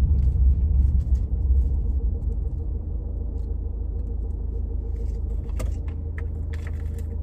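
Steady low rumble of a car's engine and road noise heard inside the cabin while driving, easing off a little over the first few seconds, with a few light clicks near the end.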